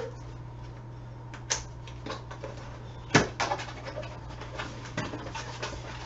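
Light handling noises, small clicks and rustles from a humidity controller and its power cord being handled, with one sharper click about three seconds in, over a steady low hum.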